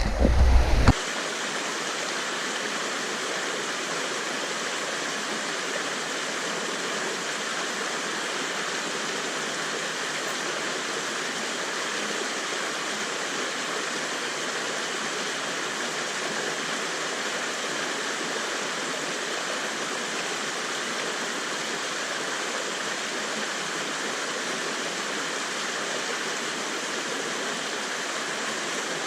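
Steady rush of flowing river water, even and unchanging. A brief low rumble on the microphone in the first second.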